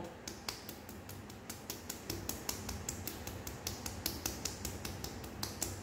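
Fingertips tapping firmly on the skin under the jaw and chin: a rapid, even run of light pats, about five a second.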